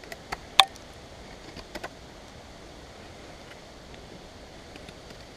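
A few sharp clicks and knocks in the first two seconds, the loudest just over half a second in, from a wooden bow-drill bow and its cord being handled. Under them runs a steady outdoor hiss.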